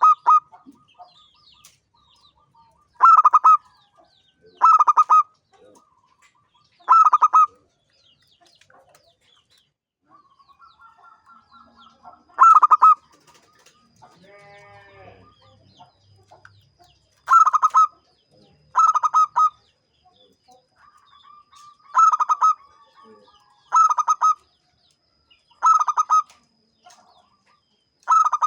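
Zebra dove (perkutut) singing: a series of short, loud coos, each about half a second long, repeated every couple of seconds with a longer pause in the middle.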